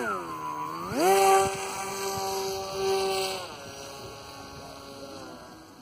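Zagi 98 cm RC flying wing's motor and propeller: a brief throttle blip, then a sharp spool-up to full power about a second in as the wing is hand-launched. It holds a steady pitch, then is throttled back and fades after about three and a half seconds as the wing climbs away.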